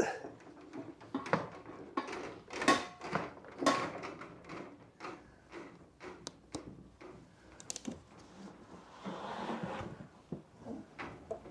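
Irregular wooden knocks, clunks and clatters from the carpet-covered timber batten and tools being handled, loudest in the first few seconds, with a scraping rustle about nine seconds in.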